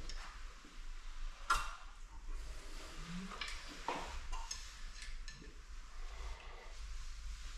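A few light clicks and knocks of tools and metal engine parts being handled during cam-timing work, over a low steady hum.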